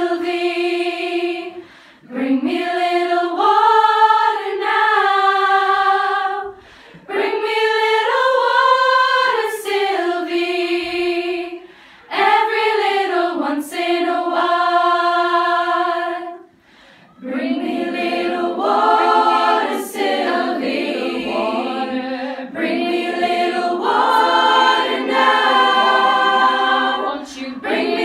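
A choir of schoolgirls singing a cappella: phrases of a single melody sung together with short breath pauses between them, then from about seventeen seconds in the sound thickens into fuller part-singing.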